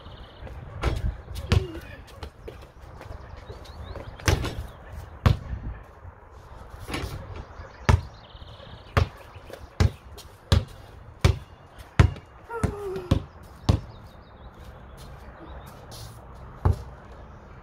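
Basketball bouncing hard on the ground: a string of sharp thuds, with a run of evenly spaced dribbles, one about every two-thirds of a second, around the middle.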